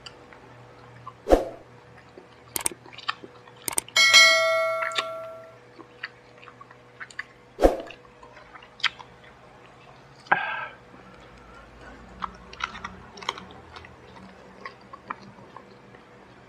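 Close-up eating sounds: a person chewing fried chicken and rice by hand, with scattered wet mouth clicks and smacks. About four seconds in, a bright bell-like ding rings out and fades over a second and a half.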